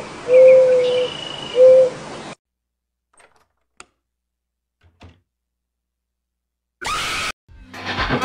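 An owl hooting over an outdoor hiss: a few long, low hoots, one bending up and back down, that stop a couple of seconds in. After a near-silent pause, a short, loud scream comes about seven seconds in, and music starts near the end.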